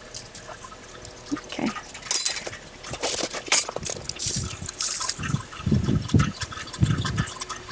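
Irregular crackling and rustling of dried potato plants and loose soil being pulled up and dug by hand, with a cluster of heavier dull sounds about five to seven seconds in.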